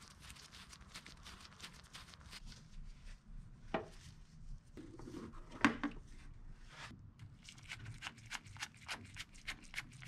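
Gloved hands handling a speedometer cable and its metal end fitting: a stream of small clicks, rubs and rustles, with two louder knocks about four and five and a half seconds in, and a run of quick ticks near the end.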